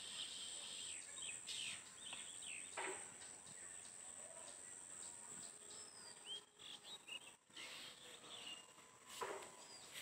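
Faint dusk ambience: a steady high-pitched insect drone, with scattered short bird chirps on top. Two brief rustles, about three seconds in and near the end, are the loudest sounds.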